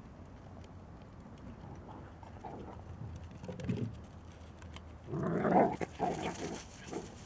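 Small dog barking a few times while running, loudest about five seconds in.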